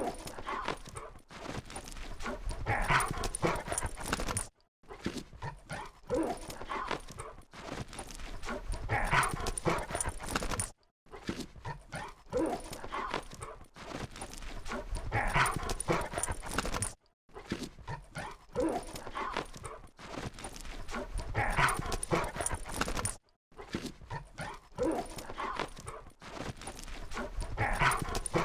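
Labrador retrievers playing and vocalising. The same stretch of a few seconds repeats, with a brief silent break about every six seconds.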